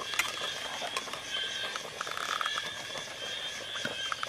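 A steady high-pitched chorus of calling animals, with scattered light clicks and knocks.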